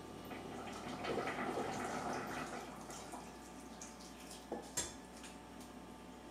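Liquid pan juices poured and scraped from a frying pan into a pot, a splashing pour strongest for about a second and a half near the start. A spoon then scrapes the pan and knocks against it a couple of times near the end.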